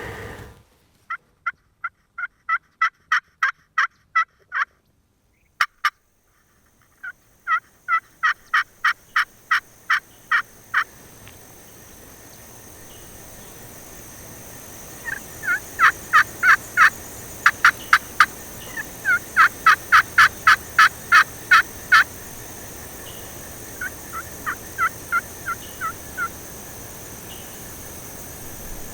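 Turkey yelping: five runs of short, evenly spaced yelps, about four a second, with pauses between the runs. It is hen-style calling aimed at a gobbler.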